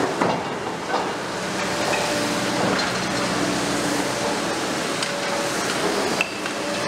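Liebherr R 950 Demolition excavator tearing down a building: the machine's engine and hydraulics run steadily, with a faint whine that shifts in pitch. Over this come continuous crunching and scattered knocks of breaking concrete and falling debris, with a sharp knock just after the start and another near the end.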